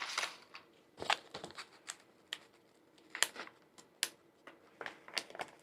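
Scissors snipping through a small medication package to cut it open: a dozen or so short, sharp snips and clicks, spaced irregularly.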